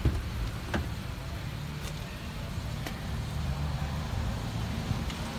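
Steady low rumble and hiss of outdoor background noise, with a few light clicks in the first three seconds.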